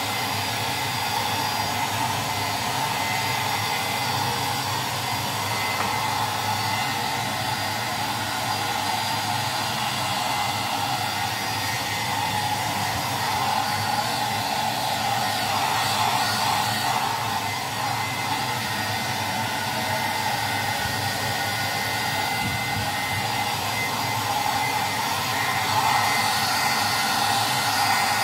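Handheld hair dryer running steadily on a dog's coat: a constant rush of blown air with a thin, steady whine from the motor and fan.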